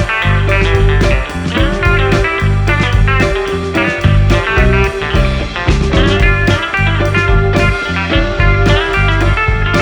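Instrumental music led by guitar, over a heavy bass line and a steady beat.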